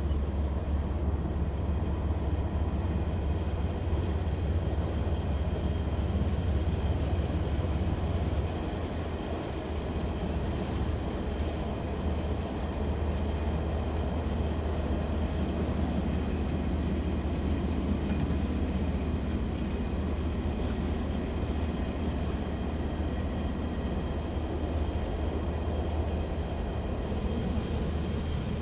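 Diesel-hauled container freight train on the move: a steady low locomotive engine drone over the rumble of the wagons rolling on the rails. The low drone eases somewhat about a third of the way through.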